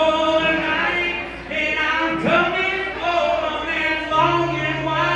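Live male singing with strummed acoustic guitar, played through a PA in a large hall, with long held, bending sung notes. A low steady note joins about four seconds in.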